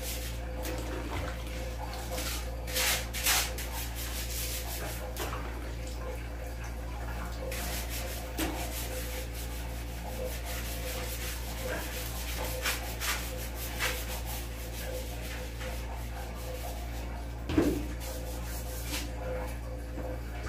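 Hand scrubbing of a tiled bathroom floor, in irregular rasping strokes over a steady hum. There is a single thump about three-quarters of the way through.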